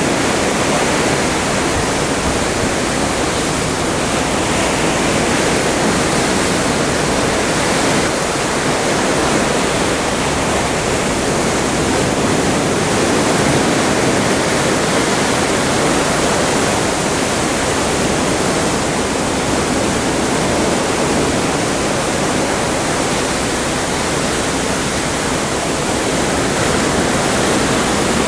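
Atlantic sea water rushing along the side of a cruise ship under way, a loud, steady, unbroken wash.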